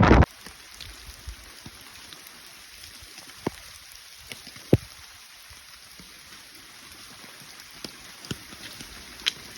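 Quiet outdoor ambience: a faint steady hiss with a few scattered small clicks and taps. A loud rushing noise cuts off suddenly just at the start.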